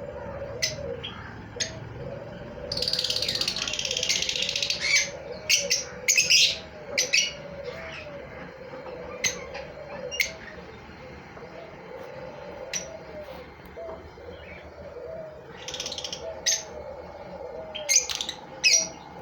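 Lovebirds chirping with sharp high calls and bursts of shrill chattering, the longest spell about three seconds in. Under them runs a low, repeated cooing.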